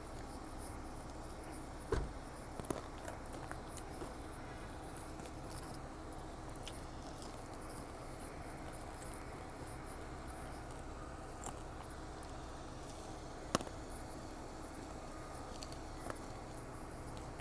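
Quiet sounds of someone eating a cheeseburger over a steady low hum, with a few sharp clicks, the loudest about two seconds in and another near fourteen seconds.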